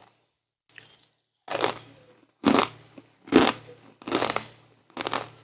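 Crisp snacks being chewed close to the microphone: a series of loud crunches, about one a second.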